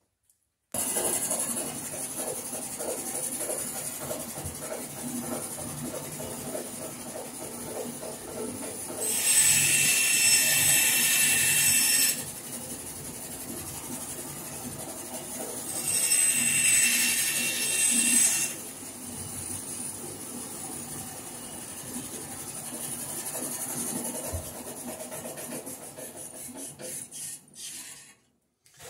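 Bandsaw switched on about a second in and running steadily, making two cuts through scrap wood of about three seconds each that are louder and high-pitched. It runs down and stops near the end.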